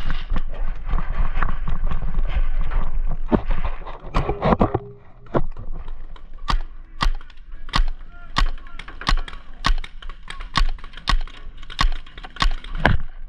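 Low-impact paintball marker firing a run of sharp pops, about two a second, through the second half, after several seconds of noisy movement and rustling.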